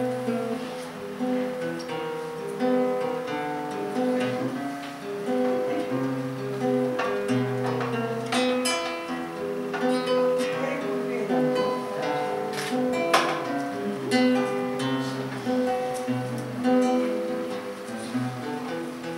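Nylon-string classical guitar played solo: a slow line of plucked notes over held bass notes.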